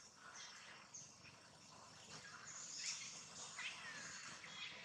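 Faint high-pitched chirps and short squeaky calls from animals, scattered over a noisy outdoor background.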